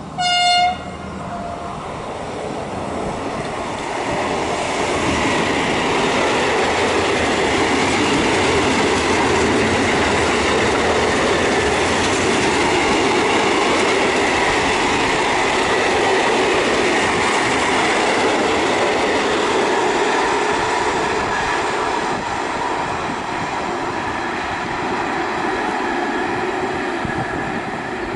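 Captrain E494 electric locomotive (Bombardier Traxx) giving one short horn blast about half a second in, then passing with a long train of tank wagons. A steady loud rumble of wheels on rail builds over the first few seconds and eases a little toward the end.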